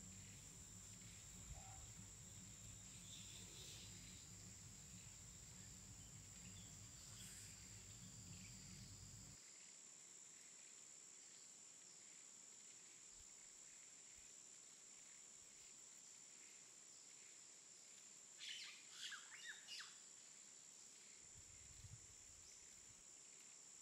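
Near silence: faint outdoor background with a steady high hiss and a low rumble that stops about nine seconds in. A short run of bird chirps comes near the end.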